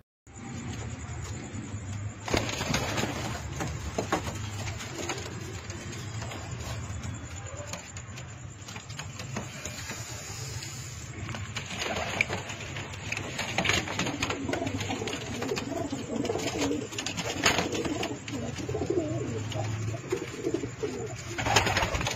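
Fantail pigeons cooing, a low rolling coo that runs on, with a few short, louder noisy bursts about two seconds in, around twelve seconds in and near the end.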